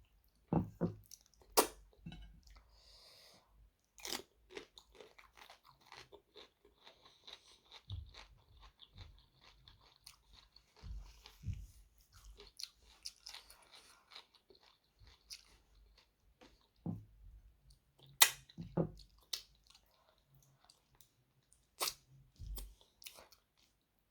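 Close-miked chewing and mouth sounds of someone eating mutton curry with rice, with scattered short clicks and a few louder sharp crunches.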